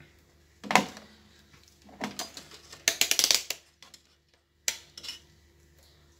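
Plastic knocks and clicks as a handheld digital multimeter and its test leads are picked up and moved about. A few separate knocks, with a quick run of rapid clicks about halfway through.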